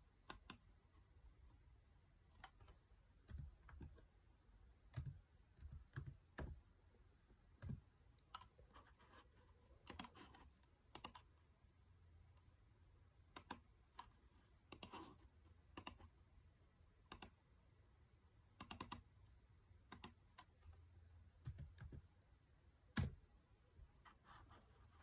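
Scattered clicks of a computer mouse and keyboard, single and in quick pairs a second or so apart, with one louder click near the end.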